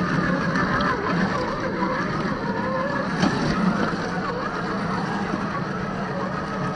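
Small electric motor and gearbox of a 1/10-scale RC crawler running, a steady hum under a whine whose pitch wavers up and down, with a few clicks from the drivetrain and the wheels on the trail.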